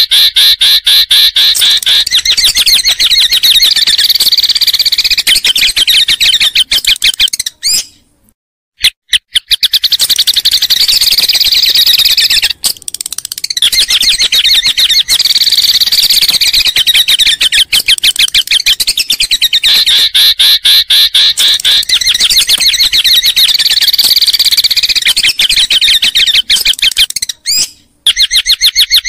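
Songbird song played as a masteran training track for white-rumped shamas: long runs of rapid, repeated high-pitched trilling notes, broken by short pauses about eight and thirteen seconds in and near the end.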